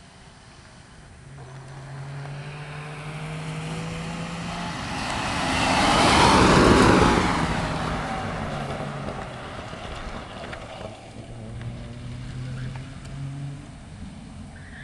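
FSO Syrena 105 small car driving past with its two-stroke engine running hard. The sound builds to a loud pass about halfway through, fades, then the engine rises again near the end.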